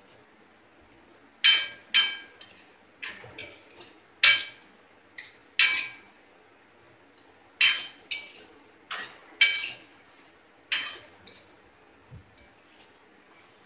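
A stirring spoon clinking and scraping against a stainless steel kadai as spiced vegetables are mixed: about a dozen sharp, irregular metallic clinks, each ringing briefly.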